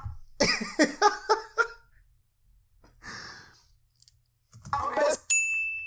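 A man laughing in short repeated bursts, then a breath out and another brief laugh. Near the end a single bright ding rings out and slowly fades.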